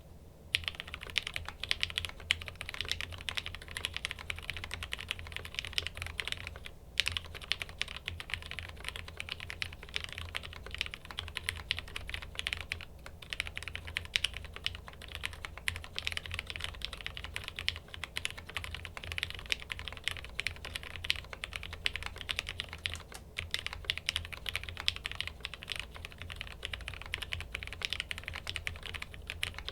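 Fast, continuous typing on a custom 65% mechanical keyboard with lubed Gateron Yellow linear switches on a POM plate in a stacked-acrylic case, with brief pauses a few times.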